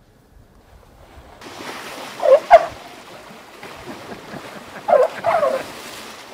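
Water splashing and sloshing as an Asian elephant wades through an icy pool, with two pairs of short, loud calls whose pitch bends, about two and a half seconds apart.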